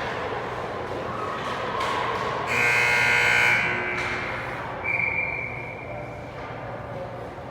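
A game buzzer sounds once for about a second, followed a second later by a shorter, steady high single tone, over the background noise of a large hall.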